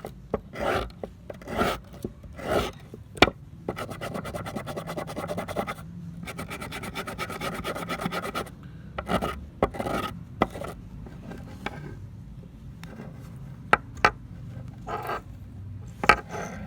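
Repeated scraping and rubbing strokes of hand abrasive work on old metal pliers, as in rust removal. In the middle there is a few-second stretch of fast, even rattling, and a few sharp clicks come near the end.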